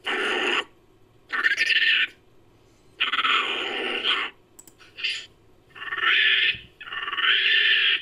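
Made-up monkey-like creature calls as a sound effect: about five separate calls, each under a second or so and split by short silences, with a brief high chirp about five seconds in.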